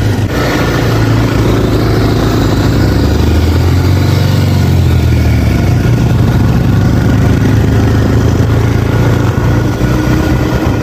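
Motorcycle engine running steadily at road speed, heard from the pillion seat, with wind rushing over the microphone; the engine note dips and picks up again a few seconds in.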